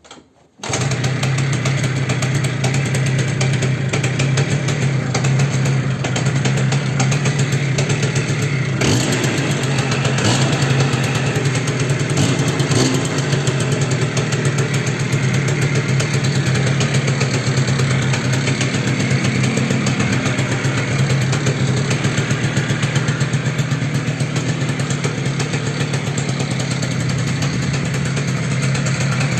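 Yamaha Jog Artistic 3KJ scooter's small two-stroke single-cylinder engine starts about half a second in and then idles steadily with a fast, even pulsing. It has a knock that the owner puts down to a worn piston (wrist) pin.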